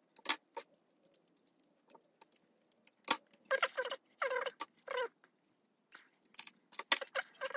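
Pliers clicking and clinking against a metal antenna base fitting as a nut is worked loose. Short squeaks come from the parts as they turn: a run of them near the middle and more near the end.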